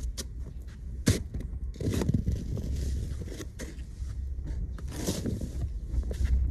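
Plastic snow shovel scraping and scooping packed snow, two scraping strokes about two and about five seconds in, with a sharp knock about a second in.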